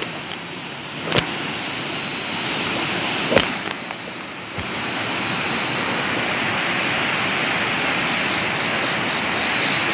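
Steady rushing of flowing river water, a little louder from about halfway through, with a thin steady high whine above it. Two sharp clicks come in the first few seconds.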